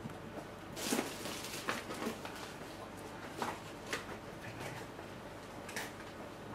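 Quiet room tone broken by a few brief, soft rustles and light taps of small objects being handled.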